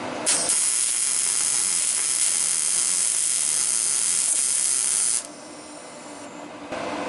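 A PrimeWeld MIG 180 welding arc running one short bead for about five seconds as a steady, loud hiss. It starts suddenly and cuts off sharply when the trigger is released.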